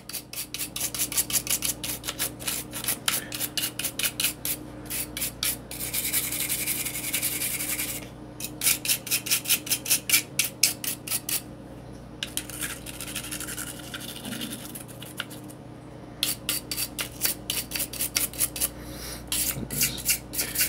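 A stiff cleaning brush scrubbing the internals of a Glock 19X's polymer pistol frame. It makes runs of quick back-and-forth scratchy strokes, stopping briefly a few times.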